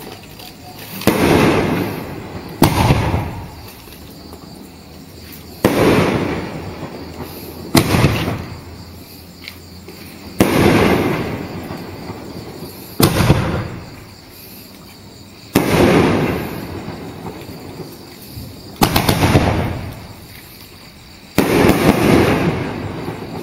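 Multi-shot consumer firework cake (a 9-shot 'Colorful Explosion' cake) firing its shells one after another. About nine sharp bangs come two to three seconds apart, each trailed by a hiss that fades over a second or two.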